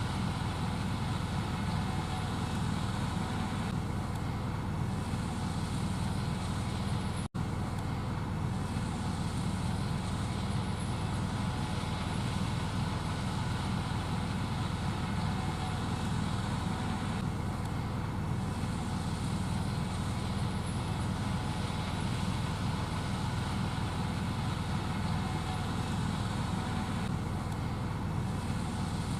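Gleaner S78 combine harvester running steadily while harvesting corn: a dense, low, unbroken machine drone. There is a momentary dropout about seven seconds in.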